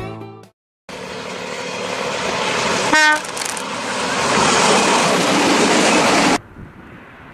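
A red vintage diesel railcar runs past with a loud, steady rushing rumble that grows louder as it comes on, and gives one short horn toot about three seconds in. The sound cuts off abruptly near the end, leaving quieter outdoor background.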